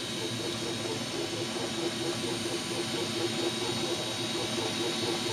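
Flashforge Artemis 3D printer printing quietly: a steady hiss from the print head's cooling fan with a thin high whine, over a wavering, pulsing hum from the motors moving the print head.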